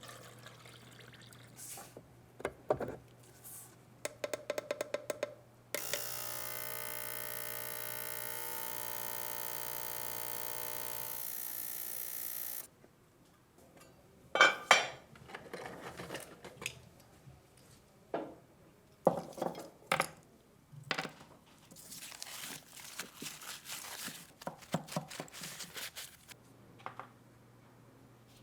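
Small metal parts clicking and clinking as they are handled, including a quick run of about ten clicks. A steady hum runs for about seven seconds in the middle.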